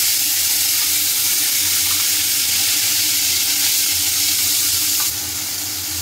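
Masala paste sizzling loudly in hot oil in a kadai as it is stirred with a spatula, a steady hiss with steam rising; the hiss drops a little about five seconds in.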